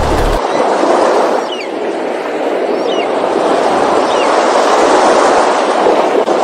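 A steady rushing noise, with three faint, short, high descending calls about a second and a half apart.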